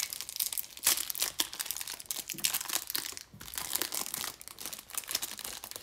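Clear plastic wrap crinkling and tearing as it is peeled off a stack of trading cards, in dense, irregular crackles.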